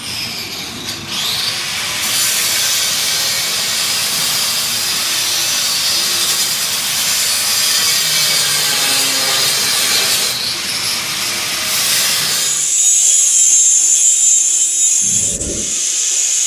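Angle grinder grinding out an old weld on a steel snowplow frame, a steady harsh hiss that narrows to a higher, thinner sound near the end. Faint background music plays underneath.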